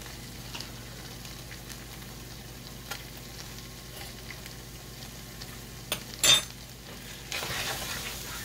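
Diced chicken and cream of chicken soup sizzling gently in a nonstick skillet, with faint crackles. About six seconds in there is a sharp knock, then a wooden spatula scrapes and stirs through the pan and the sizzle grows louder.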